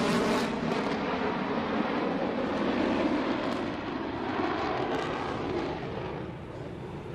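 Jet roar from an F-22 Raptor's twin Pratt & Whitney F119 afterburning turbofans as the fighter maneuvers overhead: a loud, steady rushing rumble that slowly fades over the last few seconds.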